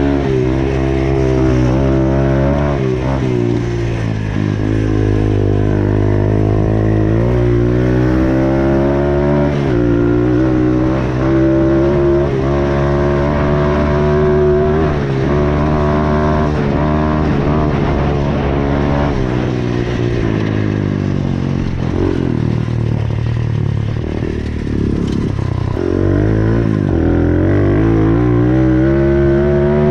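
Small dirt bike engine running under way, its pitch rising and falling again and again as the throttle is opened and closed, with a deeper stretch a little after the middle before it climbs again near the end.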